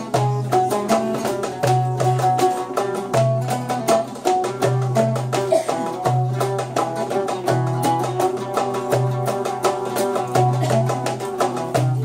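An oud plays a quick plucked melody over a goblet drum (darbuka) keeping a steady rhythm, in a Turkish folk tune.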